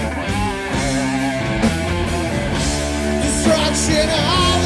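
Stoner doom band playing live: electric guitar and drums under sustained low chords, with a singer's voice coming in near the end.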